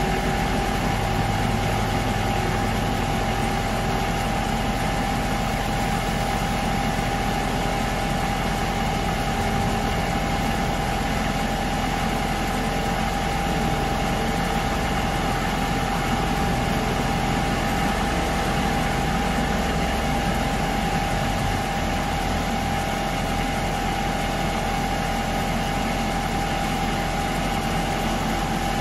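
Diesel equipment engines running steadily, with a constant high hum over the engine noise. The low engine note shifts about two-thirds of the way through.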